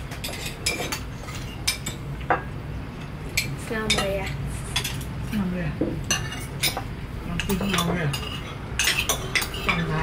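Metal spoons and forks clinking and scraping on porcelain plates as several people eat, the clinks thickest near the end.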